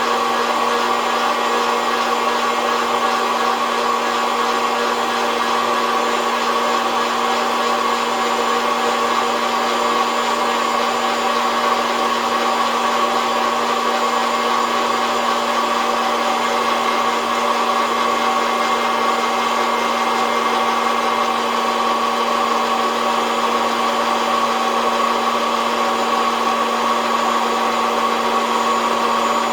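SOUYI SY-121N hot-air coffee roaster running steadily, its fan blowing heated air through the beans with an even hum and rush of air, set to a high fan speed.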